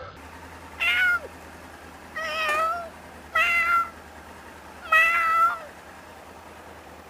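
Cat meowing four times, each meow under a second long, a second or so apart.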